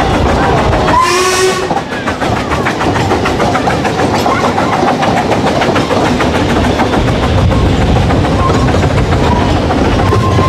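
Narrow-gauge steam train on the move, heard from the carriage: a short blast of the steam whistle about a second in. Then comes the steady clatter of the carriage wheels over the rail joints.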